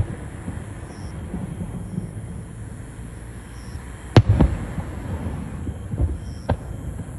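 Fireworks bursting: a loud double bang about four seconds in and two lighter bangs near the end, over a steady low rumble.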